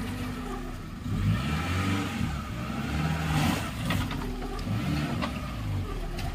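Maruti Gypsy 4x4's engine revving up and down under load as it crawls over boulders in a rocky stream bed, with a few sharp knocks partway through.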